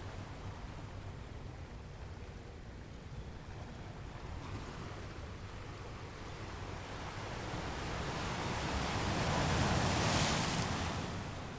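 Sea water rushing along a moving boat's hull over a steady low engine rumble; a louder surge of water builds from about halfway, peaks near the end and then fades.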